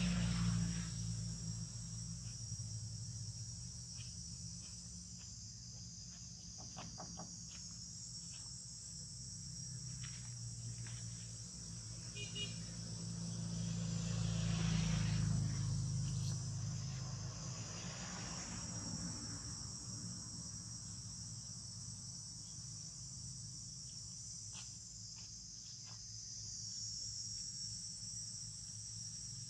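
Steady, high-pitched chorus of insects, wavering slightly in pitch, over a low rumble that swells about halfway through, with a few faint clicks.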